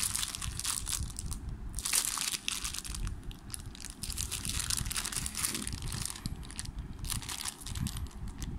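Clear plastic bag crinkling and crackling on and off as a new 9-speed bicycle chain is squeezed and turned inside it.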